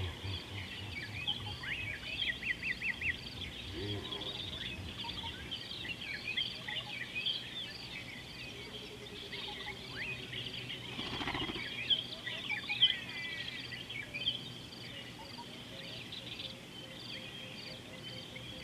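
Wild birds chirping and calling over the steady sound of the bush, many short calls overlapping throughout, with a high note repeating at an even pace behind them.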